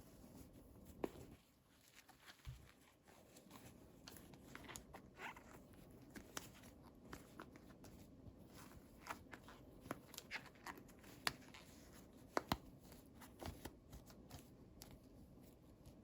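Faint handling sounds of small plastic toys and packaging: scattered light clicks, taps and crinkles, with a few sharper clicks about two-thirds and three-quarters of the way through.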